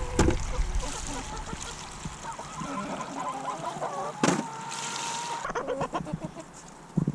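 Chickens clucking, with one sharp knock a little past the middle.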